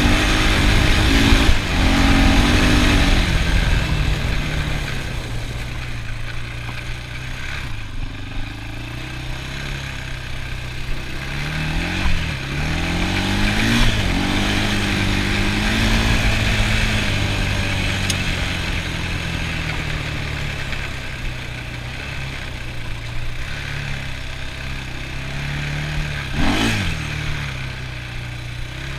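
ATV engine running on the move, loudest at first, then easing off. Quick revs rise and fall about twelve and fourteen seconds in and again near the end.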